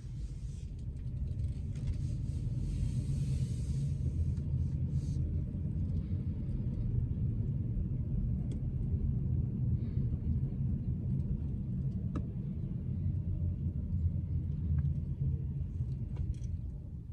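Steady low road rumble of a moving car, with a short hiss about two to four seconds in.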